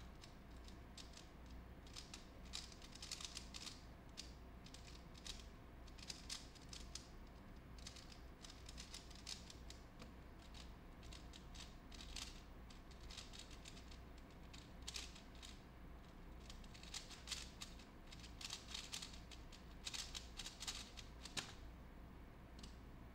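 Plastic 3x3 puzzle cube being turned rapidly by hand during a speedsolve: quick runs of light clicking turns, bunched into bursts with short pauses between them.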